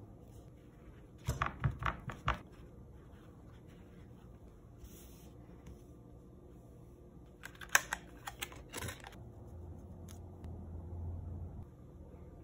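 Knife blade tapping and scraping across a paper towel on a wooden cutting board as seeds are spread out to dry, in two short runs of sharp clicks, one about a second in and one around eight seconds in.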